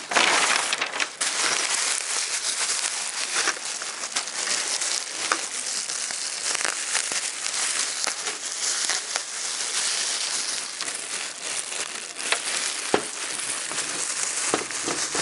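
Plastic bag crinkling and rustling right up against the microphone: continuous crackling with many sharp crackles, loudest about the first second.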